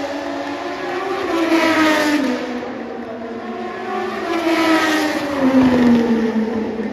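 Racing motorcycles going past on the circuit, their engine note sliding down in pitch as each goes by: two pass-bys, loudest about two seconds in and again near the end.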